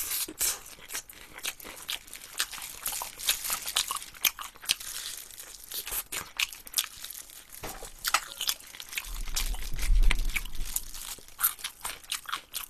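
Close-up chewing of crispy, sweet-glazed fried chicken: irregular crunches and sticky, wet mouth clicks. A brief low rumble comes about three quarters of the way through.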